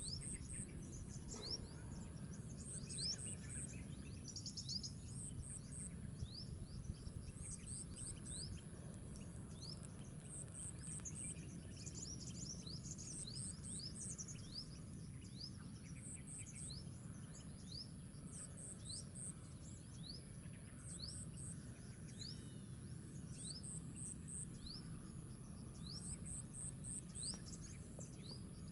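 Coastal mangrove wetland ambience, faint: insects calling in evenly repeated groups of three or four very high pips, over many short rising chirps and a steady low rumble.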